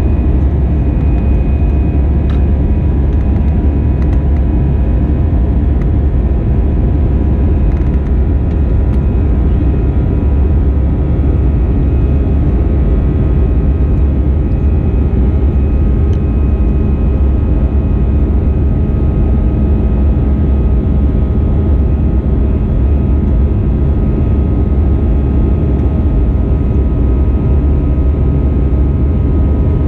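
Steady cabin noise inside an Airbus A320-214 in flight: a deep, even drone of airflow and its CFM56-5B turbofan engines, with a faint steady whine above it.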